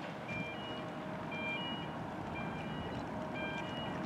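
Electronic alarm beeping: a short group of two or three flat beeps at different pitches, repeating about once a second, over a steady rumbling background noise.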